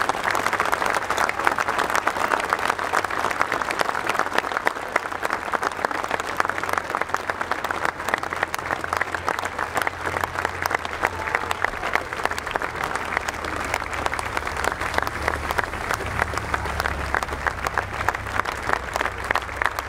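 Large stadium crowd applauding steadily, thousands of hands clapping at once in a dense, unbroken patter.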